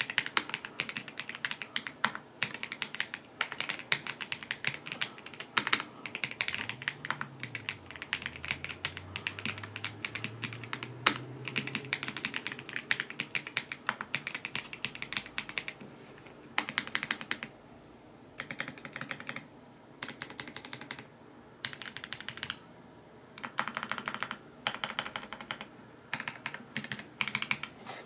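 Typing on a FEKER K75 mechanical keyboard with factory-lubed Corgi linear switches and PBT keycaps: a fast, continuous clatter of keystrokes. From about halfway through it comes in short bursts with brief pauses.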